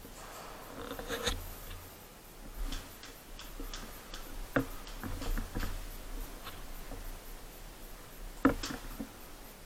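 Faint, scattered clicks and short rustles, a few seconds apart.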